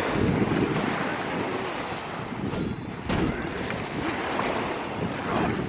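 Wind buffeting the microphone over small waves lapping in shallow sea water.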